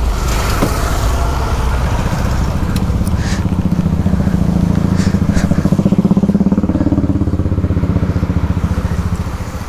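KTM RC 200's single-cylinder engine running as the motorcycle is ridden, its note growing louder and a little higher midway and easing off near the end.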